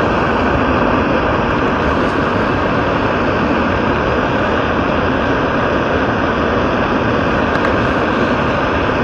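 Small gas-canister hiking stove burning at full flame, a steady rushing hiss, with coffee at a rolling boil in the steel cup on top of it.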